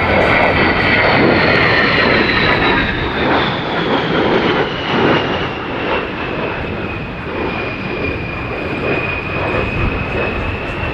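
A-10 Thunderbolt II's twin TF34 turbofan engines: a steady jet roar with a high fan whine that slowly slides down in pitch as the aircraft passes and draws away.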